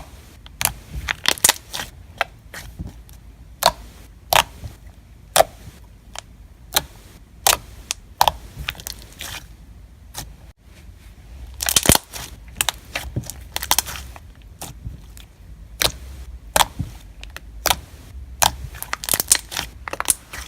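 Hands stretching and pressing a thick, glossy slime, making irregular sharp clicks and pops as air pockets burst.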